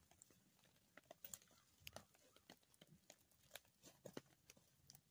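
Near silence with faint, scattered clicks and scrapes of a spoon working scrambled eggs out of a pan.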